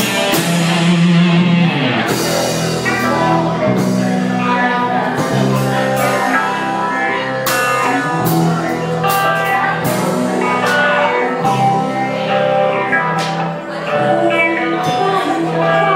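Live rock band playing: electric guitar and electric bass over a drum kit, with the drums hitting steadily under sustained guitar notes.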